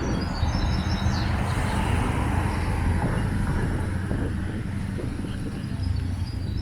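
Street sound outdoors: a car passing, its tyre hiss swelling and fading over the first few seconds, over a steady low rumble. Short high chirps sound near the start and again near the end.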